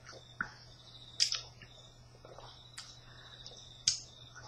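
People sipping and swallowing soda from shot glasses, with a few short, sharp mouth or glass clicks. The loudest clicks come a little over a second in and near the end.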